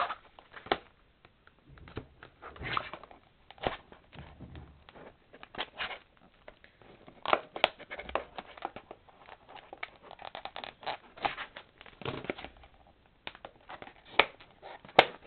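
Stiff clear plastic packaging being bent, squeezed and pried at by hand, giving irregular crackles and clicks, with a sharp snap about a second before the end.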